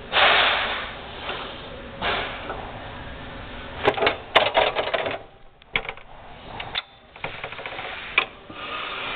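Metal clicks and rattles from hand-working a DeWalt 14-inch chop saw's quick-release vise and saw head. It opens with a loud burst of scraping noise, followed by irregular clusters of sharp clicks, busiest about four to five seconds in.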